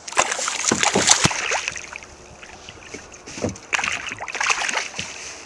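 Northern pike of several pounds thrashing at the water surface, splashing in two bouts: one in the first second and a half, another starting a little under four seconds in.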